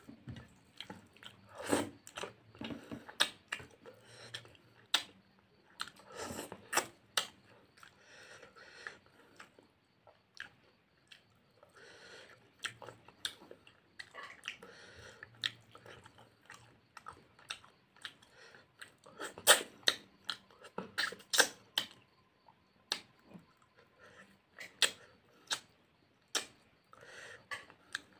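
Close-miked chewing and mouth smacking as a man eats rice and curry with his fingers, with irregular sharp wet clicks. The loudest smacks come in a cluster about two-thirds of the way through.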